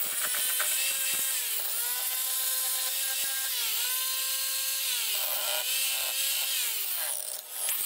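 Power tool motor running with a steady whine whose pitch sags briefly about four times as it takes load.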